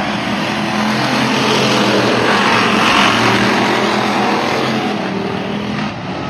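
A pack of dirt-track stock cars racing past, their engines running together in a loud, dense drone that swells to its loudest about three seconds in as the cars go by close, then eases off.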